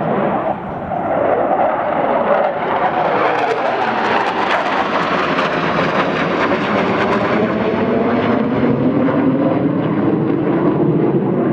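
Jet noise from a pair of F-15 Eagles, twin-turbofan (Pratt & Whitney F100) fighters, flying overhead in formation. It is a loud, continuous rumbling roar with a rising hiss that peaks around the middle and then eases.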